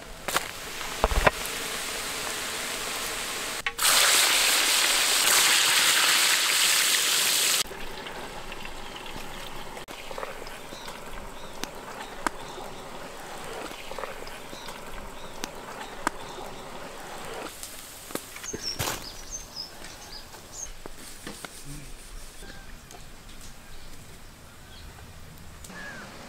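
Open-fire outdoor cooking: a loud, steady sizzling hiss for about four seconds, cutting off sharply, then a quieter steady sizzle of potato slices deep-frying in a wok over a wood fire, with scattered clicks and a few short high chirps.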